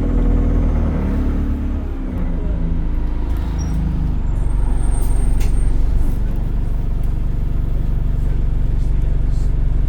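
Inside an ADL Enviro 200 bus, the engine and air compressor drone low, with a fast vibrating buzz. The tones shift for the first few seconds, then settle into a steady drone from about four seconds in. A short high beep sounds about five seconds in.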